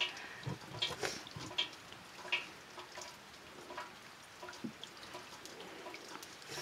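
Wooden spatula scraping and knocking against a metal cooking pot and plates as cooked food is scooped out and served: a string of irregular soft taps, scrapes and plops.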